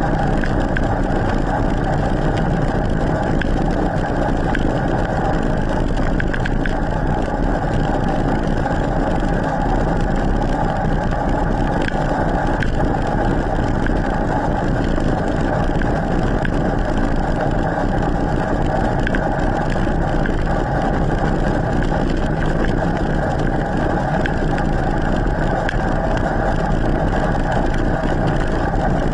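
Steady loud drone of an e-mountain bike rolling on asphalt, heard from a camera mounted low on the bike: tyre and wind noise with a steady hum running through it.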